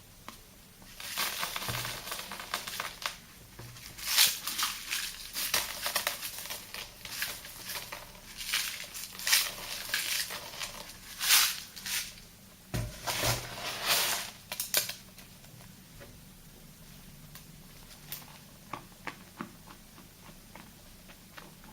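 Soapy, salty paste being worked, making scratchy, crackling strokes in irregular bursts; they stop about fifteen seconds in, leaving a few faint clicks.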